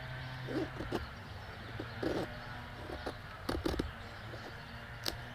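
Knife blade shaving curls off a wooden stick to make a feather stick: a handful of short, separate scraping strokes, the sharpest about three and a half seconds in and again near the end.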